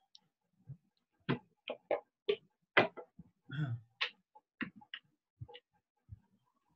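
A run of irregular clicks and light taps, about a dozen, some sharp and some duller, with a brief rustle about three and a half seconds in.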